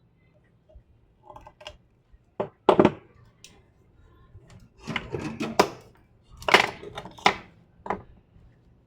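Small hard objects being handled, making a string of sharp knocks and clattering rattles, loudest about three seconds in and again between five and seven and a half seconds.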